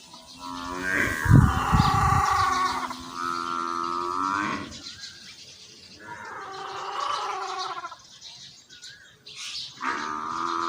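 An animal calling in long, drawn-out cries, four times, each lasting a second or two, with a loud low thump near the start.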